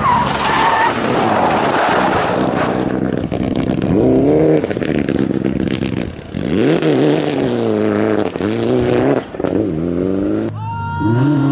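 Mitsubishi Lancer Evolution rally car's turbocharged four-cylinder engine driven hard through a tight corner and away, its revs rising and falling several times through gear changes. Near the end the sound changes abruptly to a different, steadier engine note.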